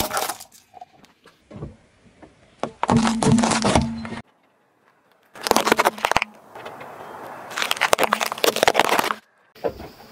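Car tyre rolling over and crushing toys and food on asphalt: three bursts of cracking and crunching, the last and longest from about six and a half to nine seconds in, with short pauses between them.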